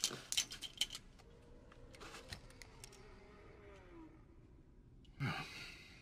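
Small metal cartridges clicking against each other as they are handled in a palm, a few light clicks in quick succession. Then, about five seconds in, a heavy sigh.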